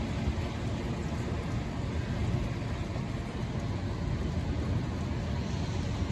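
Thunderstorm wind and rain making a steady noise with a constant low rumble.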